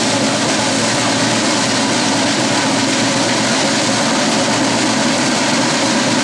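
Steady hubbub of a large crowd of spectators, with no single voice or event standing out.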